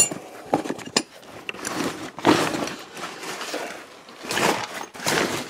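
Handling noise from rummaging through climbing gear: rustling of rope, bags and fabric in irregular surges, with a few light clinks.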